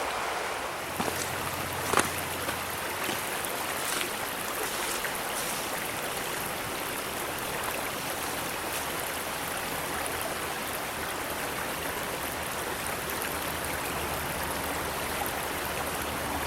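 Steady rush of stream water flowing past, with a few small knocks in the first few seconds.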